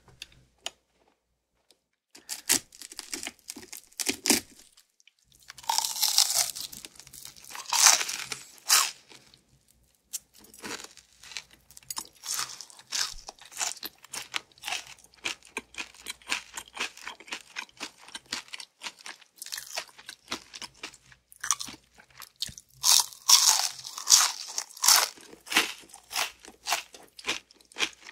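Crunching and chewing of crispy fried chicken, heard close up: loud crunchy bites about six and eight seconds in and again a little before the end, with a steady run of crackly chewing between.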